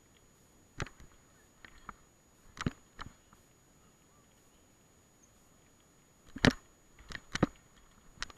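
Sharp knocks and rattles of a mountain bike jolting over bumps on a dirt singletrack descent, about ten in all, the loudest about six and a half seconds in, with a quiet spell in the middle.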